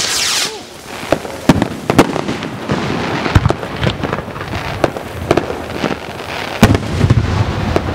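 Morning Glory handheld sparklers burning: a steady hiss of spraying sparks, loudest for the first half second, with frequent sharp crackles and pops throughout.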